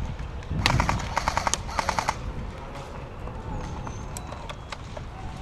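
Airsoft gun firing a rapid burst of about ten shots a second for about a second and a half, with a few single shots cracking out later.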